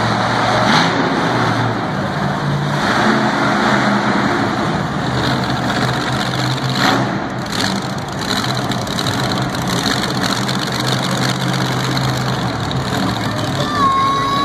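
Monster truck engine running at low speed, its deep steady note stepping up and down a few times as the throttle changes. Two short sharp knocks stand out, about a second in and about seven seconds in.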